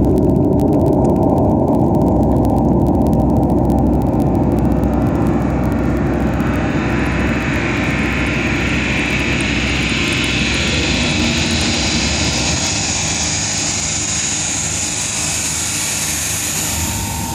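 Loud, steady engine rumble with a high whine that climbs slowly in pitch.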